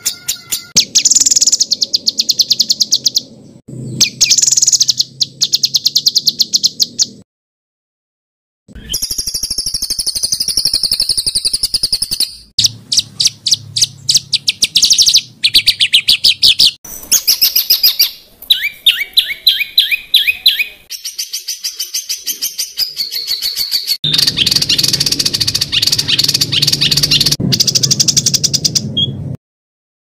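Songbird singing loud, high-pitched phrases of very rapid repeated notes, dense fast-fire trills and chatters, broken by short pauses, with a full break about seven seconds in.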